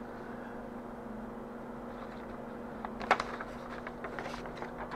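Sheets of printed paper and acetate rustling as they are handled, with a short crackle about three seconds in and a few softer rustles near the end, over a steady low hum.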